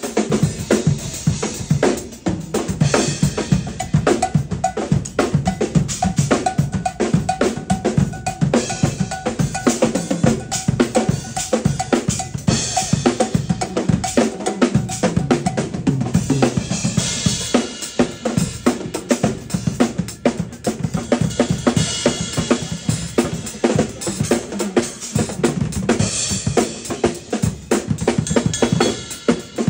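Acoustic drum kit played fast in a shedding-style solo: dense, rapid kick, snare and tom strokes with cymbal crashes.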